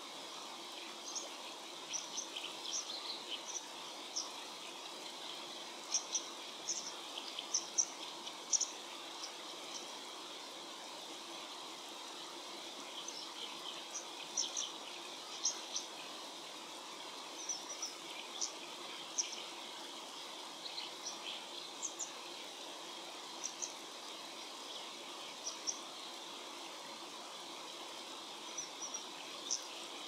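Brown dipper singing its territorial song: clusters of short, high, sharp notes repeated every few seconds, over the steady rush of a stream.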